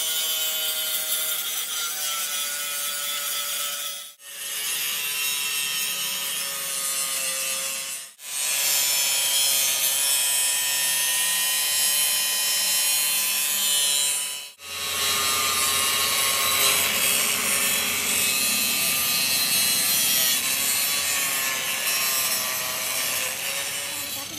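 Electric angle grinder with an abrasive disc grinding the steel end of a steering tie rod ball joint, a continuous harsh grinding hiss over a motor whine whose pitch wavers under load. The sound breaks off briefly three times and resumes.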